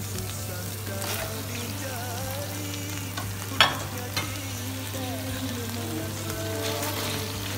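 Flat rice noodles and chili paste sizzling in a hot wok as a spatula stirs them, with one sharp knock about halfway through.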